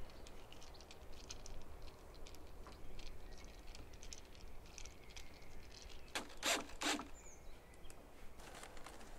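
Light clicks and scrapes of a screwdriver tightening a hose clamp on a small water pump's hose, with three louder short scraping sounds close together between six and seven seconds in.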